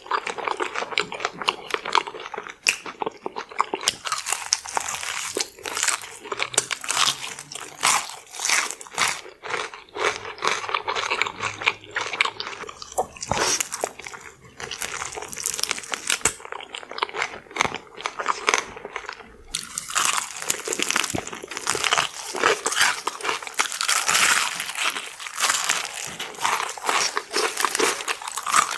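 Close-miked crunching and chewing of extra crispy fried chicken: a dense run of sharp, irregular crackles as the crisp breaded crust is bitten and chewed.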